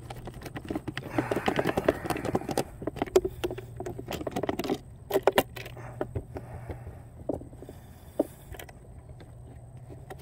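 The plastic hatch canopy of a Pro Boat Veles 29 RC catamaran being unlatched and lifted off. There is a dense run of clicks and rattles over the first few seconds, then a few scattered knocks, over a steady low hum.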